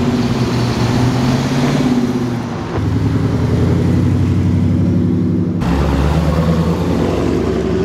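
Muscle cars, among them a Dodge Challenger and a 5.0 V8 Mustang GT, driving slowly past one after another with their engines running at low revs. The engine note changes as each car takes over, about three seconds in and again near six seconds, when a deeper exhaust note comes in.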